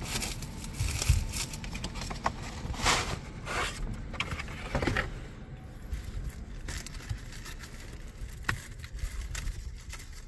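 Handling noise: rustling, scraping and sharp clicks of a pleated cabin air filter and its plastic holder being worked by hand. It is busiest in the first five seconds, then thins to occasional clicks.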